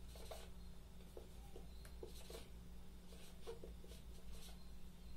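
Marker pen writing on a whiteboard: faint, short strokes one after another as words are written out.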